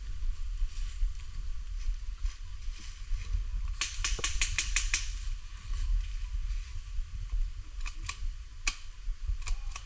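Airsoft guns firing: a quick burst of about eight sharp shots in just over a second, then scattered single shots near the end, over a steady low rumble.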